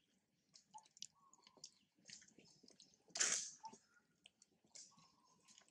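A macaque eating a green banana: faint chewing, small clicks and squishy peel sounds, with one brief louder hissing burst about three seconds in.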